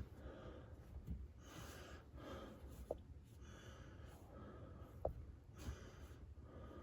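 Faint breathing in slow, soft swells, with two small sharp ticks about three and five seconds in.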